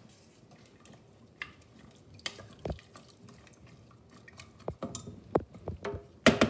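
Kitchen utensils clinking and knocking against a saucepan, a few scattered taps at first and then more frequent, louder knocks in the second half.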